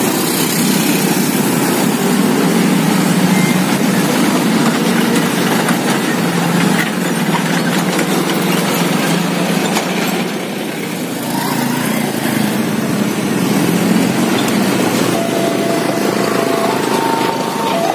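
Road traffic crossing a railway level crossing: many small motorcycle engines running as bikes ride past, with a truck among them. Near the end a steady electronic tone begins, stepping between two pitches.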